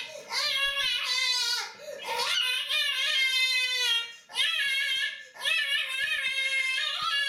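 A boy wailing in long, drawn-out cries, about four in a row with short breaths between, each held at a fairly steady pitch. The crying is put on: he was told to start screaming.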